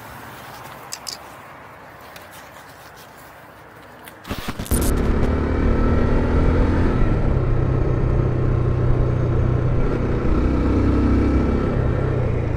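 A low, quiet stretch with a couple of faint clicks, then about four and a half seconds in a motorcycle engine cuts in loudly and runs steadily under way, with wind and road rush.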